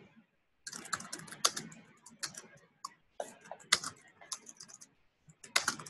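Computer keyboard typing: quick runs of keystrokes with short pauses between them.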